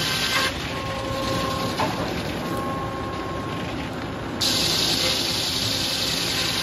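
Sawmill's circular head saw sawing hard maple: a loud hissing cutting noise that drops away about half a second in, leaving the machinery running with a steady whine. The cut comes back in loudly about four seconds in.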